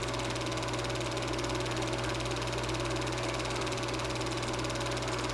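Super 8 film projector running: a steady, rapid mechanical whir over a constant low hum.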